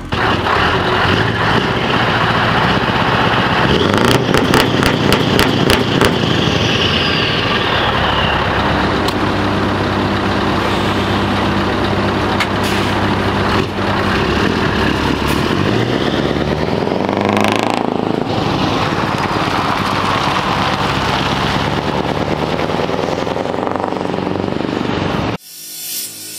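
Scania V8 truck engine running through loud open exhaust pipes, steady at first, with a rev that rises and falls about two-thirds of the way through. It cuts off about a second before the end.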